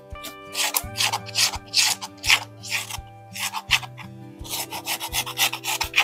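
Stone pestle scraping and grinding a coarse powder on a flat stone mortar, in quick rhythmic rasping strokes. There are two runs of strokes with a short pause near the middle.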